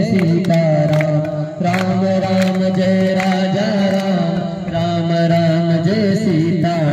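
Devotional chanting in a melodic line, the voices holding long, steady notes that shift pitch now and then.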